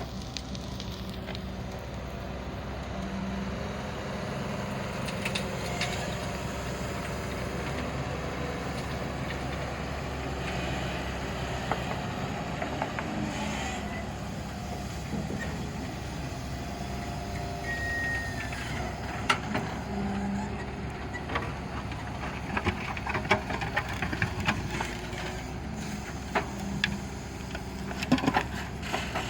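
Excavator's diesel engine running steadily, its note growing louder every several seconds. Sharp clanks and knocks come more and more often through the second half.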